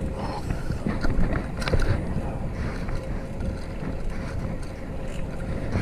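Wind buffeting a GoPro action camera's microphone while riding a fixed-gear bike, over a steady low rumble from the tyres on the road, with a few small knocks about one to two seconds in.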